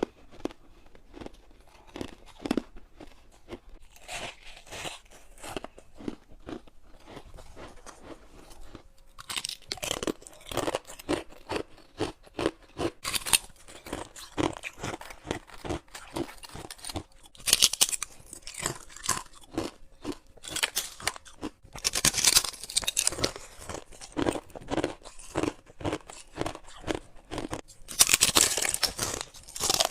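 A person biting and chewing humidifier-tray ice close to the microphone, with quick, irregular crunches throughout. After a brief pause about nine seconds in, the ice changes from frost-coated ice to clear ice, and the bites become louder, sharper crunches.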